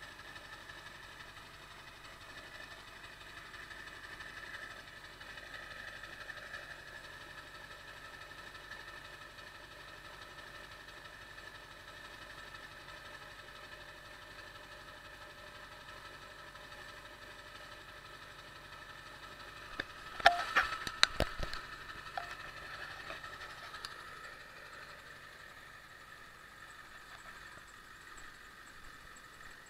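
Ford 7.3 L Power Stroke V8 turbodiesel in a 1999 F-350 idling steadily after a cold start. About two-thirds of the way through there is a brief cluster of sharp clicks and knocks. The owner reports a hiccup at idle that a new ICP sensor has not cured.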